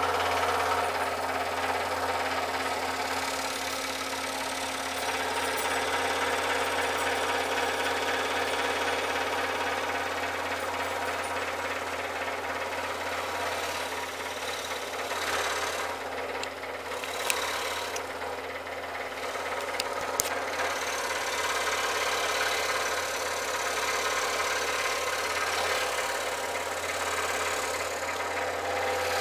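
Scroll saw running steadily, its blade stroking up and down as it cuts a pattern in a thin wooden board, over a constant low motor hum. Two sharp clicks come a few seconds apart past the middle.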